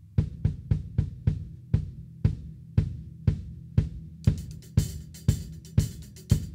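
PDP MX maple-shell drum kit played in a steady groove of drum strokes, about three to four a second. About two-thirds of the way in, a continuous cymbal wash joins from the A Custom hi-hats or ping ride.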